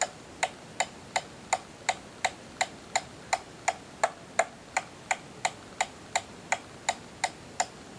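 Hammer tapping a nail into a wooden board in quick, light, even strokes, about three a second, stopping shortly before the end.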